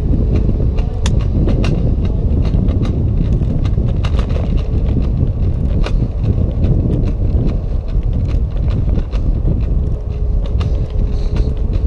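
Lime electric scooter riding along a concrete path: heavy wind rumble on the microphone, scattered clicks and rattles, and a faint steady whine at the start and again near the end.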